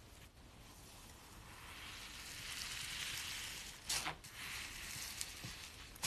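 Slime being squished and worked by hand, giving a crackly, sizzling hiss that swells in the middle, then a sharp pop about four seconds in.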